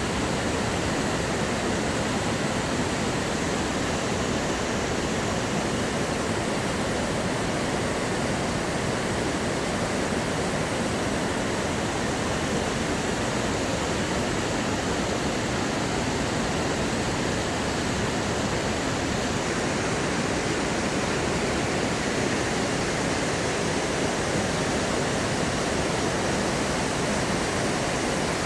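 Water rushing steadily, an even hiss with no breaks or changes in level.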